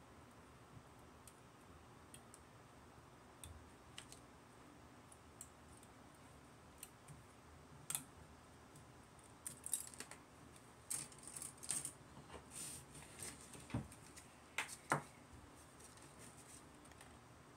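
Small plastic parts of a Gundam model kit being handled and fitted together by hand: scattered sharp clicks and snaps, coming thickest in the middle stretch and loudest a couple of seconds before the end.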